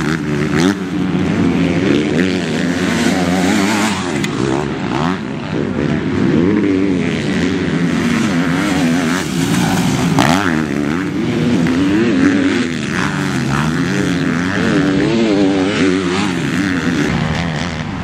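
Several MX2 motocross motorcycles racing, their engine notes overlapping and rising and falling continually as the riders accelerate and shut off around the track.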